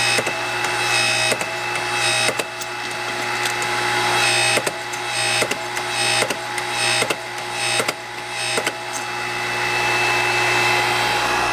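Shop machine's electric motor running steadily, with sharp clicks roughly once a second.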